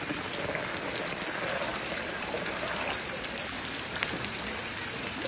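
Steady monsoon rain falling on a flooded street, an even hiss with many small drop splashes on the standing water.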